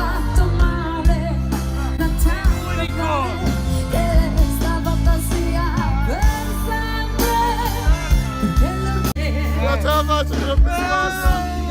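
Pop music with a singing voice over bass and drums.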